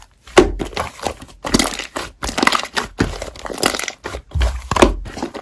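Slime being handled, squeezed and poked by hands, giving a dense, irregular run of crackling and popping clicks.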